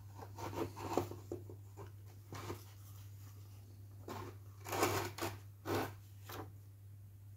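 Paper instruction booklet rustling as it is handled, in a series of short irregular rustles, the loudest about five seconds in.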